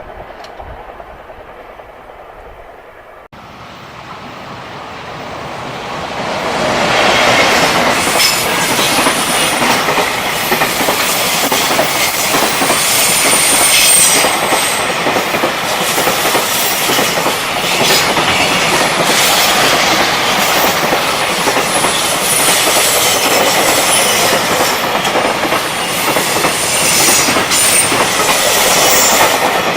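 Freight train passing close by. It swells over a few seconds into a loud steady rush of wheels on rail, with clicks from rail joints throughout and brief high wheel squeals several times.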